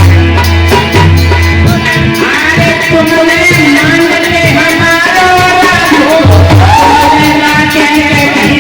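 A Bhim geet, a Hindi devotional song: a singing voice over a loud band with a heavy drum beat, the voice coming in about two seconds in.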